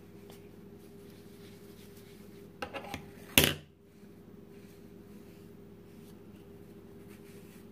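Makeup being handled, a powder compact and puff: a few light clicks just before three seconds in, then one sharp knock about half a second later, over a steady low hum.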